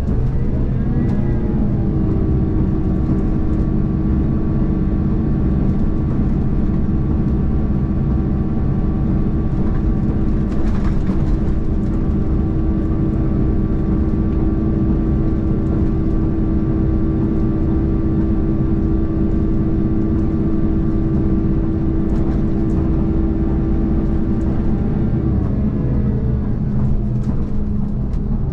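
KiHa 283 series diesel railcar's engine rising in pitch as it powers up, running steady under load, then falling back near the end as the power is shut off, over a low running rumble. A brief rattle about ten seconds in.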